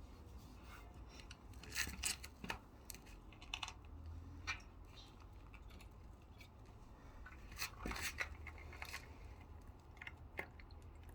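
Faint, scattered clicks, scrapes and rustles in irregular clusters, loudest around two seconds in and again around eight seconds in, over a low steady hum.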